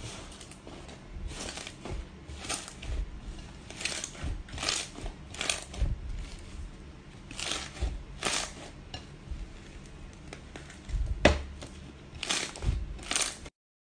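Irregular scraping and light clattering handling noises, with one sharp click about eleven seconds in; the sound cuts off abruptly just before the end.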